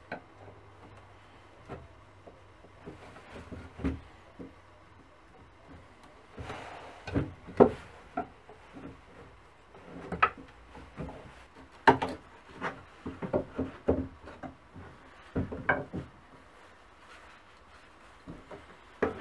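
Screwdriver prying and scraping at the old wooden handle of a rusty hedge knife to work it off the tang, giving irregular sharp knocks and clicks of metal on wood, loudest in clusters through the middle.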